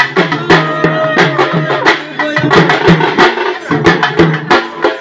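Pambai troupe drums beaten with sticks in a fast, steady folk rhythm, sharp woody strokes over a recurring low pitched drum thump, accompanying a goddess-possession dance.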